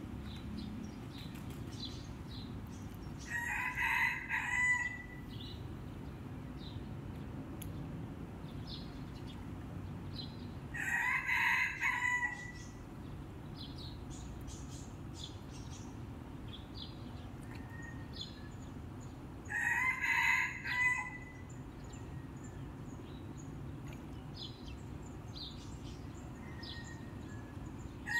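A rooster crowing three times, about eight seconds apart, each crow about a second and a half long, with small birds chirping faintly between crows.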